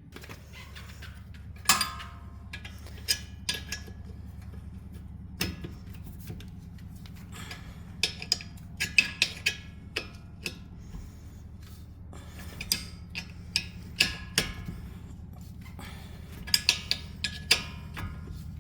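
Sharp metallic clicks and clinks of a socket wrench working the bolts of a rear brake caliper. They come singly and in short clusters of quick ticks over a faint steady low hum.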